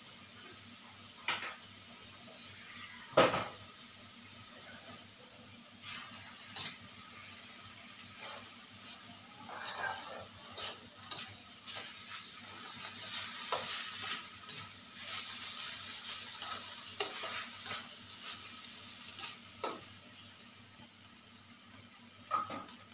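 Beef and onion slices being stirred with a spatula in a stainless steel wok: scattered clinks and knocks of the spatula against the pan over a light sizzle of frying, the sizzle stronger in the middle. A sharp knock about three seconds in is the loudest sound.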